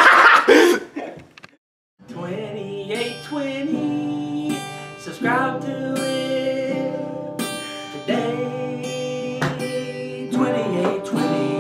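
A brief burst of loud laughter and scuffling, cut off into a second of silence, then acoustic guitar music starts, strummed with a singing voice over it.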